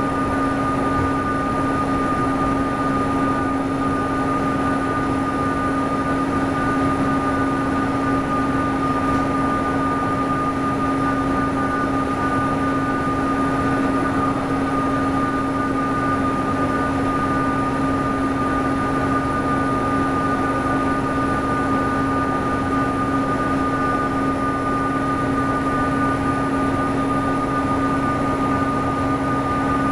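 Diesel engine of a NABI 436 transit bus running steadily at cruising speed, heard inside the bus, with a steady high turbocharger whistle held over the engine and road noise.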